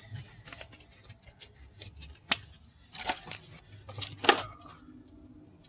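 Gloves being pulled onto the hands: scattered rustling and stretching, with a sharp snap about two seconds in and two louder rustles near three and four seconds in.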